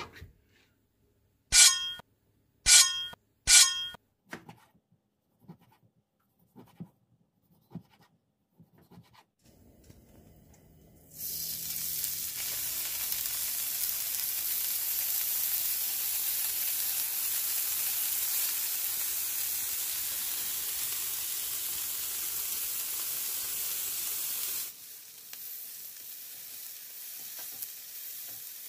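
Thin slices of marbled beef sizzling on a hot stovetop griddle: a loud, steady hiss that starts about eleven seconds in and drops to a quieter sizzle near the end. Before that come three short, loud ringing sounds and a few soft knocks.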